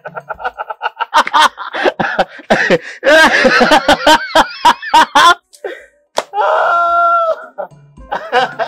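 A man laughing loudly in long, repeated fits, then letting out one long held cry about two-thirds of the way through. Light marimba-like music can be heard at the start and again near the end.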